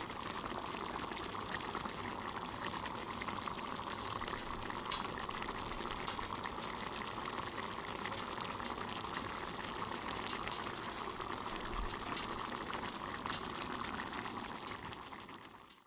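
Hamburg steaks simmering in sauce in a pan over a wood fire: a steady bubbling with many small pops, fading out near the end.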